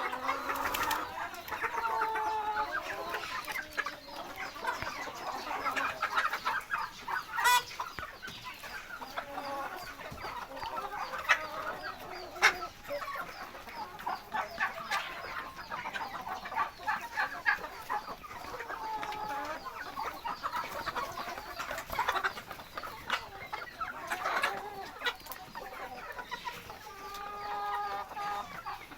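A flock of chickens clucking and calling, many overlapping calls at once, with scattered sharp clicks among them.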